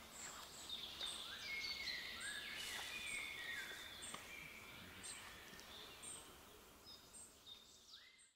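Songbirds singing in woodland: several overlapping songs of high thin notes and whistled phrases sliding downward. The sound fades out near the end.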